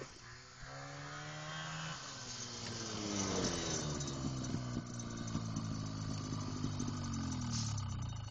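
Vintage snowmobile, a 1971 Arctic Cat Panther with a 1968 Polaris two-stroke engine, running under load through deep snow. The engine note holds steady for about two seconds, then sinks slowly for the rest of the time.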